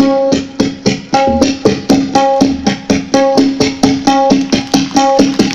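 Tabla played as an imitation of a coal-fired steam locomotive just starting to pull away, not yet up to speed: an even run of sharp strokes about five a second, with a ringing pitched stroke about once a second.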